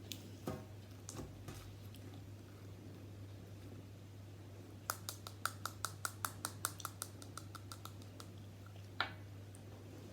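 Slime being squeezed and worked by hand, giving small sharp popping clicks: a few early on, then a quick run of about five pops a second for a few seconds, and one louder pop near the end, over a steady low hum.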